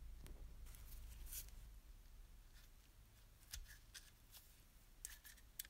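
Faint handling sounds: light clicks and rustles of gloved hands picking up and fitting painted metal toy-ship parts on a workbench.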